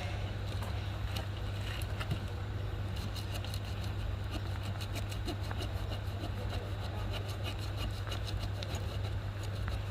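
Small multitool saw blade cutting a hard durian-wood branch: a quick run of short scratchy ticks from the teeth, densest from about three seconds in, over a steady low hum.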